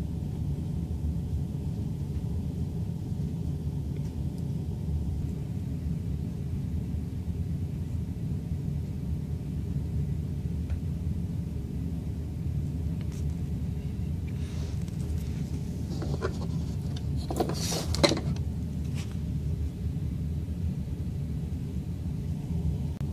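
Toy fire truck's engine sound feature playing a steady low engine rumble, with a few brief clicks and rattles about two-thirds of the way through.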